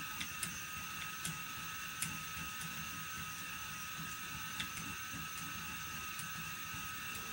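Phoenix electric spinning wheel running steadily with its flyer turning: a constant high motor whine over a soft low rattle, with a few faint ticks.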